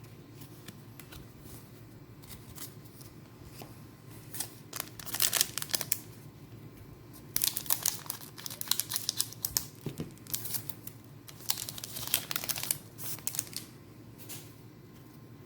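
Foil booster-pack wrapper of trading cards crinkling and tearing open as it is handled, in several short spells of crackling.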